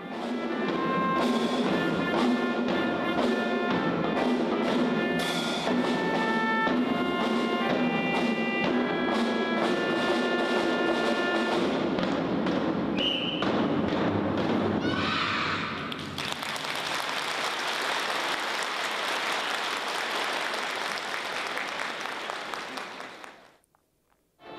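Children's drum corps of snare drums and melodicas (keyboard harmonicas) playing a simple march tune with steady held notes over the drumming. From about two-thirds of the way in, the tune gives way to an even sound of audience applause, which fades out near the end.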